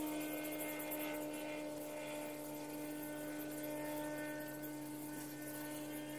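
Steady electrical hum holding several fixed tones, unchanging throughout.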